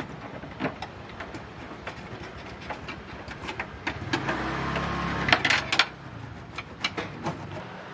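Irregular metallic clicks of a socket wrench working a bolt inside a car's tailgate panel, with wiring and clips being handled. A denser, louder run of clicks over a low rumble comes about four to six seconds in.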